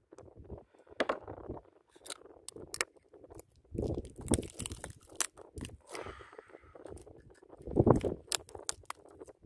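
Handling noise on a plastic kayak: irregular clicks, knocks and scrapes, with duller thumps about four and eight seconds in.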